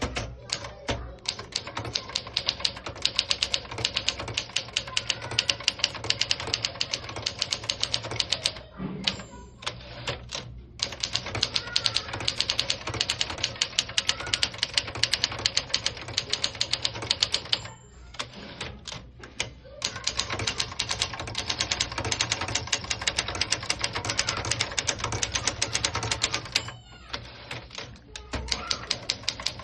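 1975 Keller & Knappich Princess 500 manual typewriter being typed on fast: rapid clacking keystrokes in three long runs. Each run is broken by a pause of about two seconds that opens with a brief high ring and a few scattered knocks.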